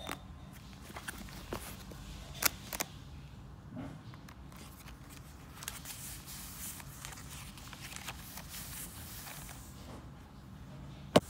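Hands handling a small paper journal, opening it and pressing its lined pages flat: light taps and paper rustling, with one sharp click near the end.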